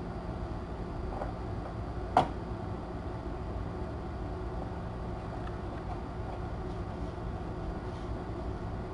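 Steady low background hum and rumble, with one sharp knock about two seconds in.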